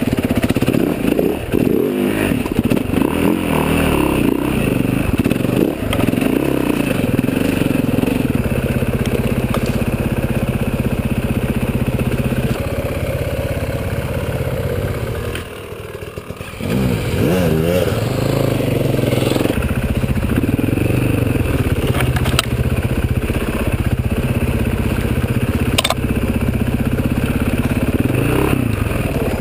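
Enduro dirt bike engine, heard from a helmet-mounted camera, revving up and down as the bike is ridden over rough ground. About halfway through it falls away briefly, then revs up again with a rising pitch; a couple of sharp clacks come later.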